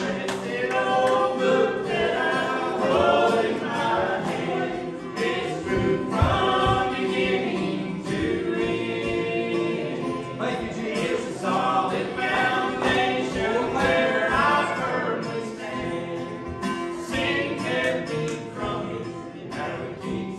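Church congregation or choir, a group of voices singing a gospel song together.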